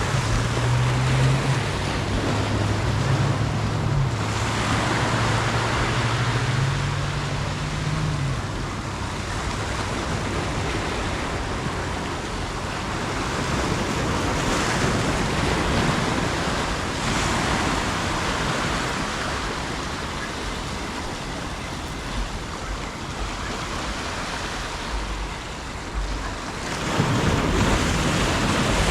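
Ocean surf breaking and washing against the shore, surging every few seconds, with wind on the microphone. A low steady hum runs under it for about the first eight seconds, then fades out.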